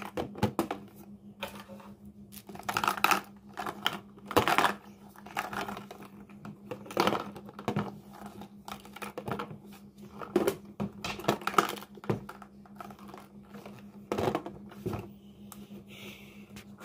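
Irregular clicks and clatters of hard plastic as a toy mini claw machine's prize chute and its plastic capsule balls are handled, over a faint steady hum.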